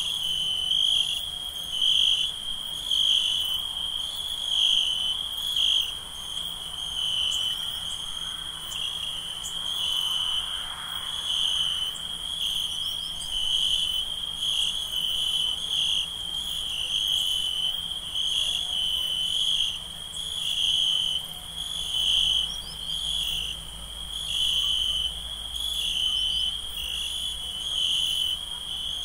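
Night ambience of crickets chirping: a steady high trill that swells in a regular pulse about every second and a half, with a fainter, higher insect buzz above it.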